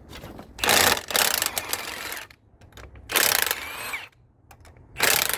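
Impact wrench running in three bursts, the first about a second and a half long, the second about a second, and a short one near the end, spinning bolts loose on a big-block engine.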